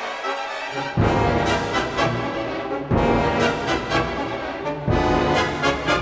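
Orchestral background music led by brass, with strong full-band entries about every two seconds.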